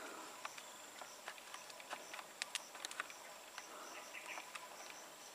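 Forest insects, crickets or cicadas, making a steady high buzz with a chirp repeating about twice a second. A few sharp clicks come in the middle.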